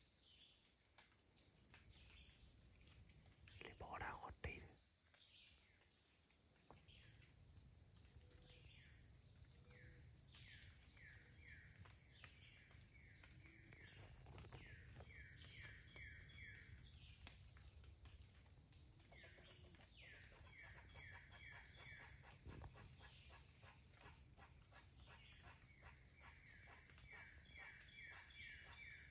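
Steady, high-pitched insect chorus, with several runs of short repeated chirps from another small creature over it.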